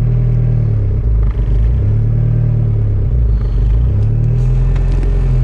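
Turbocharged LS-VTEC four-cylinder engine of an Acura Integra running rough, its idle rising and sagging in slow waves about every two seconds. It runs badly with the vacuum line plugged in, which the owner puts down to a tune made with that line unplugged.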